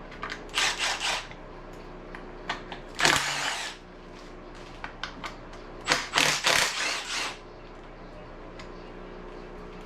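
A handheld power tool runs in three short bursts, about half a second to a second and a half each, spinning fasteners out of an engine during teardown.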